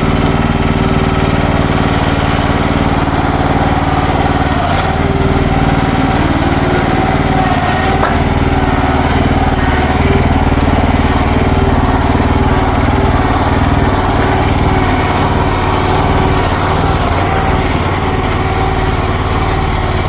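Small gasoline engine of a Future FT15 mini excavator running steadily.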